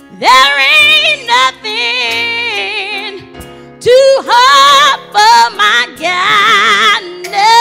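A woman's solo gospel singing over electric keyboard accompaniment, with long held notes that waver and bend in pitch. She sings two long phrases, the second starting about four seconds in.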